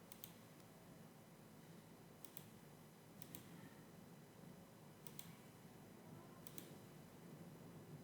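Faint computer mouse clicks, five in all spaced a second or two apart, each a quick press-and-release double click, over low room hum.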